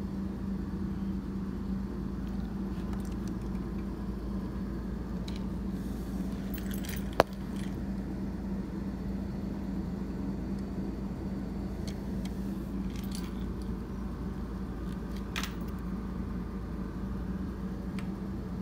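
A steady low hum with a few faint scattered clicks, and one sharp click about seven seconds in.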